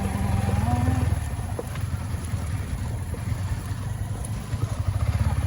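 Motorcycle engine running at low speed, easing off in the middle and picking up again near the end.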